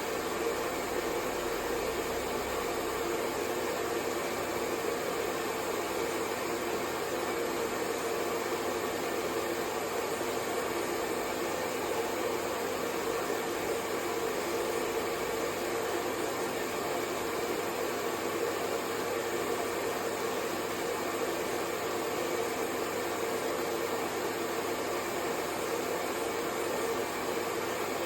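Hair dryer blowing continuously at a steady speed: an even whoosh of air with a faint motor hum, played as white noise to lull a baby to sleep.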